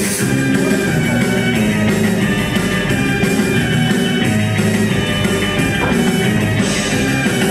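Loud rock-style music with guitar, playing steadily.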